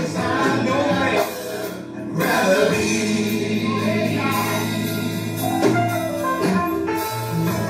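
Gospel music played live: a band with singing voices carrying a slow song.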